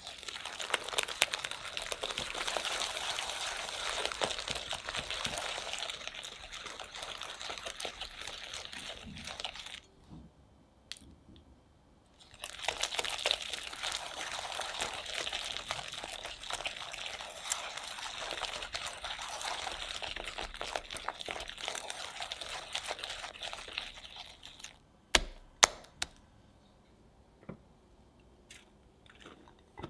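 Hand whisk beating creamed butter and egg in a glass bowl: rapid wet scraping with fast clicking of the wires against the glass, in two spells of about ten seconds each with a short pause between. A few sharp knocks follow near the end.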